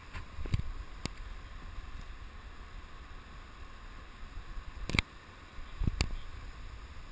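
A few sharp knocks and taps from a hand handling the GoPro camera in its housing, the loudest about five and six seconds in, over a steady hiss of moving water and a low rumble.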